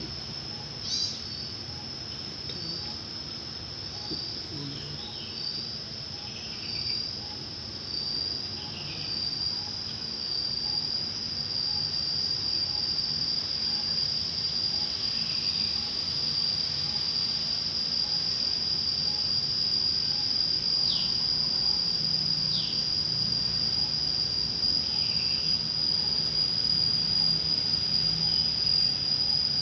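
Steady high-pitched insect trill that grows louder about a third of the way in, with a few brief falling chirps over it.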